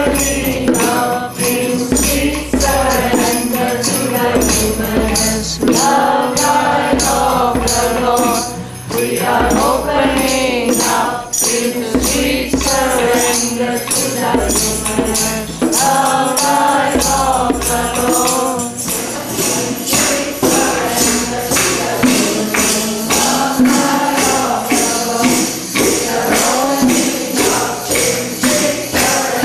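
A group of people singing a devotional satsang chant together, with jingling hand percussion such as a tambourine keeping a steady beat.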